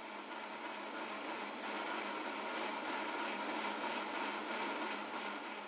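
Mixer grinder running on high speed, blending a liquid oats-and-banana smoothie in its steel jar: a steady whir that fades out near the end.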